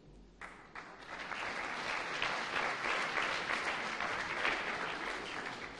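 Audience applauding, beginning about half a second in, holding steady and thinning near the end.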